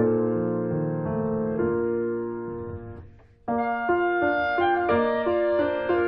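Background piano music playing a slow melody. About three seconds in, the notes fade almost to nothing, and a new piano passage starts abruptly half a second later.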